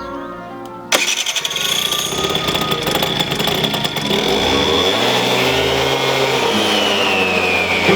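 Aprilia Mojito 50cc scooter engine running, starting abruptly about a second in; it is revved once, the pitch rising and then falling back over the last few seconds.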